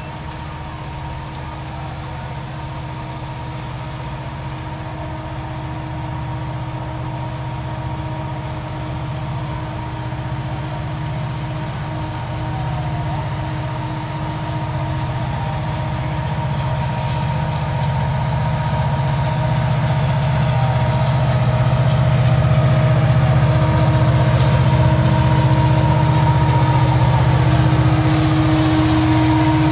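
Approaching diesel train locomotive: a steady low engine rumble with a faint steady hum above it, growing louder as it nears.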